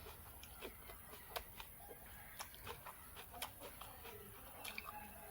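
Close-up chewing of food, with sharp crunches, the loudest about one a second in the middle stretch.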